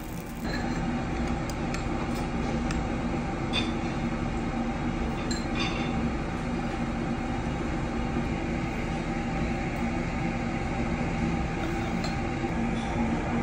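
Restaurant ambience: a steady low hum and rumble, with a few light clinks of glass and tableware.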